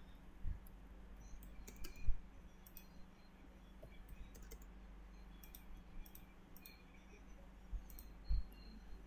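Computer mouse clicking: a dozen or so short, irregularly spaced clicks as lines and grips are picked in a drawing program, with a few dull low thumps, the loudest about two seconds in.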